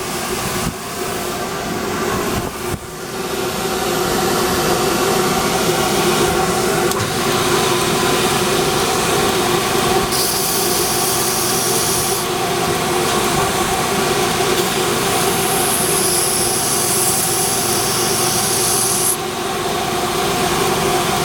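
Grinder motor running with a steady hum, while a metal knife part is pressed against it twice, giving a hiss of grinding for about two seconds near the middle and about three seconds later on: the top end of an assembled slipjoint knife being ground flush so both sides match.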